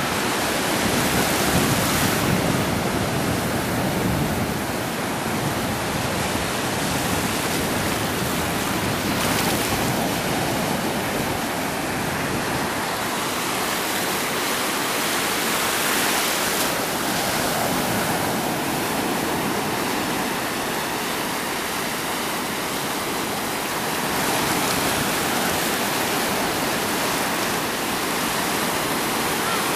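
Ocean surf breaking and washing up a sandy beach: a steady rushing noise that swells each time a wave breaks, about every seven seconds.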